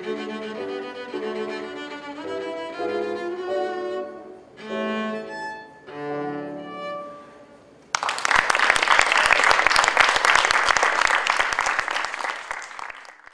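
Cello with piano accompaniment playing the closing phrases of a piece, the last notes dying away about seven and a half seconds in. Then an audience breaks into applause, the loudest sound here, which cuts off suddenly.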